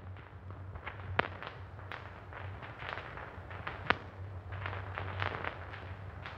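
Worn optical film soundtrack between lines of dialogue: a steady low hum under scattered crackles, with two sharper pops, one about a second in and one just before four seconds.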